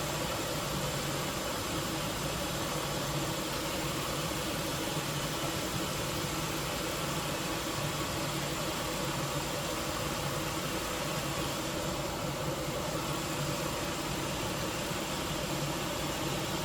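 Dodge Intrepid V6 engine idling steadily on fresh spark plugs, still running slightly rough ('stumbly', 'a little off'). The owner thinks the stumble could be a vacuum leak or the oxygen-sensor code.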